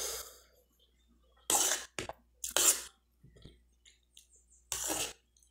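A woman chewing a mouthful of cuscuz and fried sausage, with several short, sharp sniffs through a runny nose that her allergy is causing.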